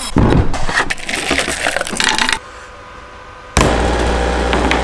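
Quick clatter of knocks and clicks from handling the hard plastic parts and packaging of a newly unboxed gas leaf blower. About three and a half seconds in, after a quieter moment, a steady low hum starts suddenly.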